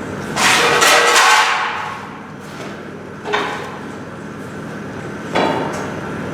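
Hammer blows on steel, three in all about two seconds apart, each ringing briefly and fading. The first is the loudest and longest. A steady mechanical hum runs underneath.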